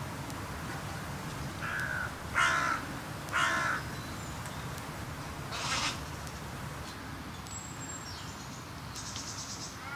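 Carrion crows cawing: about four harsh caws in the first six seconds, the loudest two about a second apart around two and a half and three and a half seconds in.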